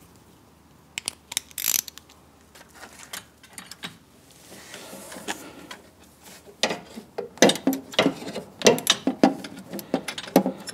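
Hand socket ratchet clicking as it runs a nut down a battery hold-down rod, in quick bursts of strokes. A few scattered metal clicks come first, and the ratcheting picks up about six and a half seconds in.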